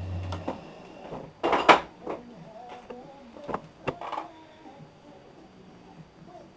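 A steady motor hum stops shortly after the start, as the lathe turning the crankshaft is switched off for measuring. It is followed by a handful of separate metallic clicks and knocks from handling tools, the loudest about one and a half seconds in.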